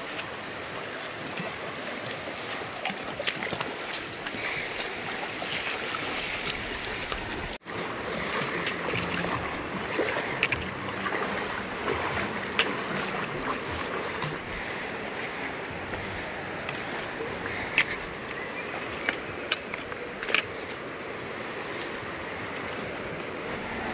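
Shallow Virgin River rushing over stones, with wading splashes and occasional sharp knocks. The sound drops out for an instant about seven and a half seconds in.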